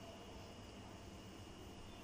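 Faint room tone: a steady hiss with a low hum and a thin, steady high whine, with no distinct event.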